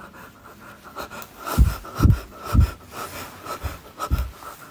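A person breathing heavily close to the microphone: several short, low, muffled puffs.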